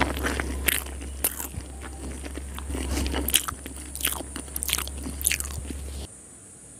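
Close-miked chewing of a mouthful of chicken biryani, with many sharp mouth clicks and smacks over a steady low hum. Both stop abruptly about six seconds in.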